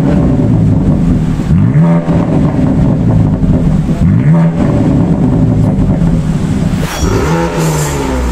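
BMW G80 M3 Competition's S58 twin-turbo inline-six revved repeatedly through a titanium Akrapovic exhaust in Sport Plus mode. Each blip climbs in pitch and falls back to idle, about every two seconds.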